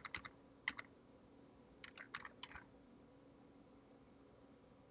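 A few faint computer keyboard keystrokes over near-silent room tone: one keystroke under a second in, then a quick run of about four around two seconds in.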